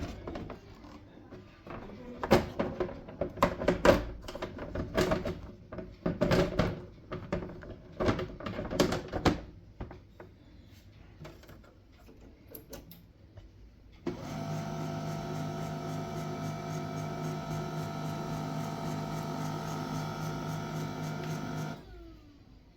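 A few seconds of knocks and clatter, then, past the middle, an HP LaserJet M1136 MFP printer's motors start a steady humming whir with several fixed tones. It runs for about seven and a half seconds as the machine initialises, then cuts off suddenly.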